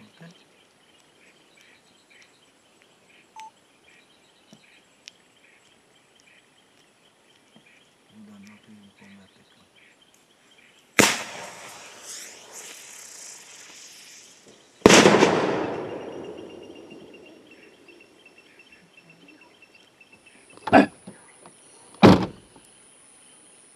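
A firecracker fizzes loudly for about four seconds, then goes off with a loud bang that echoes and dies away over a couple of seconds. Near the end come two more sharp cracks, about a second apart.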